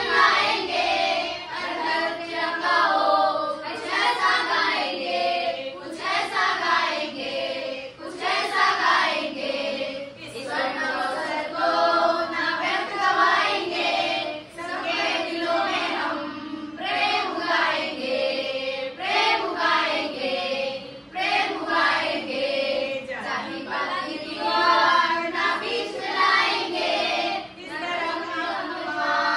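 A group of children, with some women's voices among them, singing together as a choir in phrases with brief pauses between lines.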